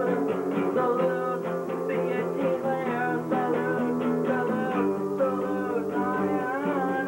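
Live music with an electronic keyboard playing chords and melody alongside other instruments, continuous throughout, with a wavering held note near the end.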